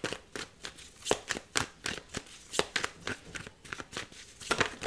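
A deck of tarot cards being shuffled by hand: a steady run of quick, crisp card slaps and riffles, about three or four a second.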